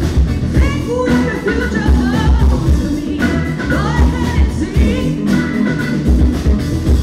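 Live band playing: a woman singing lead over electric guitars, bass and drums.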